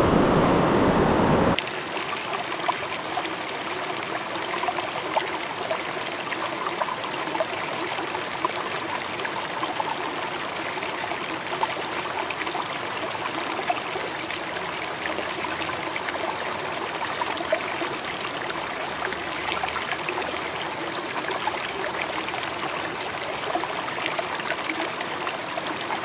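Shallow river water trickling and bubbling close by, with small splashes around a hand and a rainbow trout held in the current. A louder rushing noise cuts off abruptly about a second and a half in, leaving the steady trickle.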